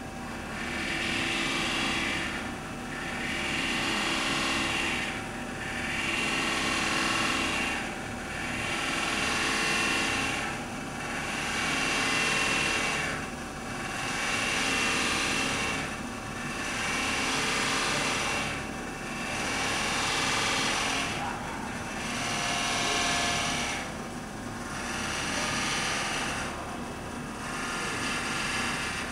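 Cincinnati No. 2 OM centerless grinder grinding a part in through-feed under flood coolant: a steady machine hum with a grinding noise that swells and fades regularly, about every two and a half seconds.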